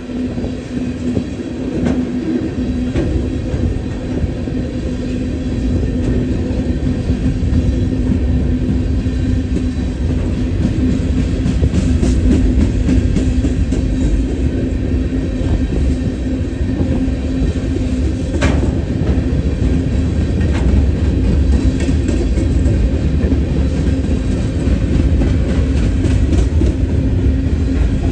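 A train rolling past, a steady heavy rumble with scattered clicks of wheels over rail joints, growing a little louder over the first ten seconds.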